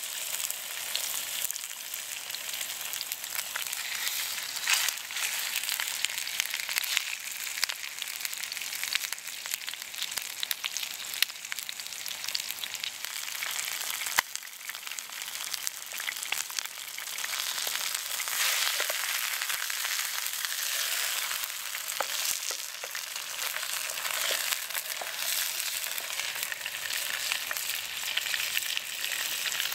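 Chicken thighs frying in hot oil in a pan over a campfire: a steady sizzling hiss with many small pops and spits. The sizzle grows a little louder a bit past halfway.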